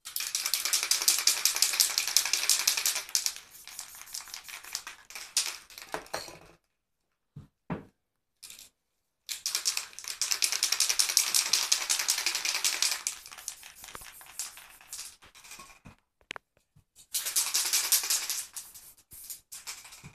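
Aerosol spray paint can shaken hard, the mixing ball inside rattling rapidly, in three bouts that each trail off into slower clicking, with a few short knocks in between.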